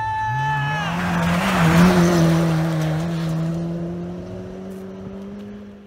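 Rally car passing at speed on a snowy stage: the engine note climbs, a loud rush of tyre and spray noise peaks about two seconds in, then the engine holds a steady note that slowly fades as the car goes away.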